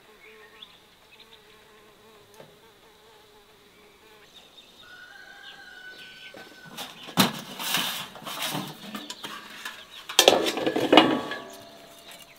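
Faint buzzing of flying insects, then a metal tray and utensil clattering and scraping in two loud spells, about seven and ten seconds in.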